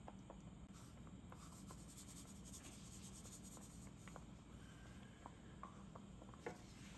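Near silence: a faint, grainy hiss of salt being poured into a pan of tomato sauce, with a few small ticks.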